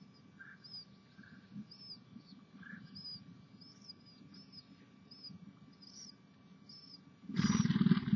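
Bird chirping: short, high chirps repeating about once or twice a second, with a few lower notes among them. Near the end a loud rushing noise breaks in over them.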